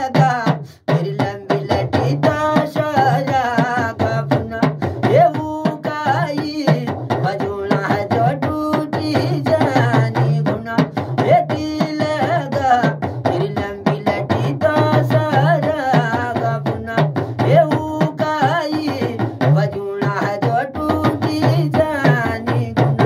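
Hudka, the Kumaoni hourglass drum, beaten by hand in a quick, steady folk rhythm while a man sings a Kumaoni folk song over it.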